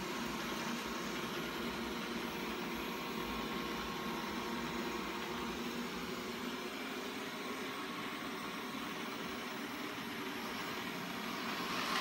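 First-generation Xiaomi Mi robot vacuum running steadily as it drives itself back to its charging dock, a continuous motor whir and hum.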